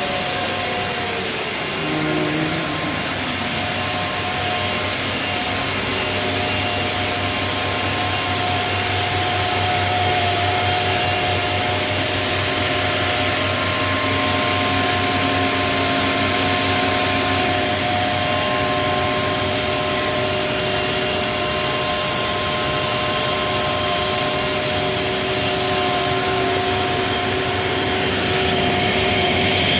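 C.R. Onsrud 381G18CD CNC router running: a steady machine hiss and hum with several held whining tones. A whine falls in pitch over the first three seconds.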